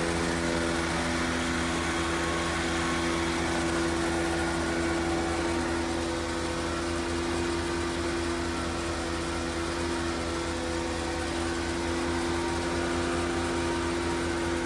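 A machine running steadily: an even, constant hum made of a few held pitches over a low hiss, with no change in speed.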